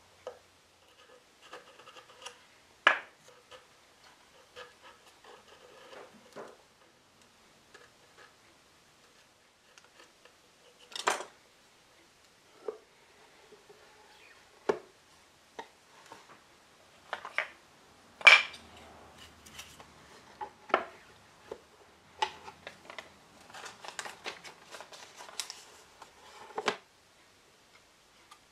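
Small metal hand tools, a thin knife blade and similar, clicking and knocking against a wooden box and being picked up and set down on the bench, with light scraping between. The knocks come at irregular intervals, a dozen or so, some much louder than others.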